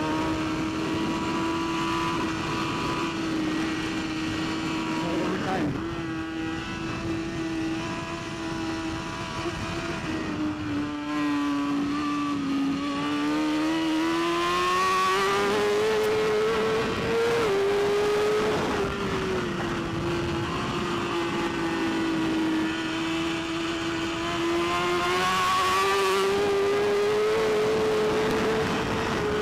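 BMW S1000RR superbike's inline-four engine running hard at high revs on track, its note drifting up and down as the bike accelerates and eases off, with a sudden small drop a little over halfway through.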